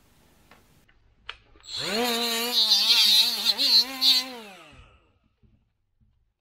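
Compact cordless power driver spinning at the arbor nut of a grinder polisher. Its motor winds up a little under two seconds in, runs for about two and a half seconds with its pitch wavering under load, then winds down and stops. A short click comes just before it starts.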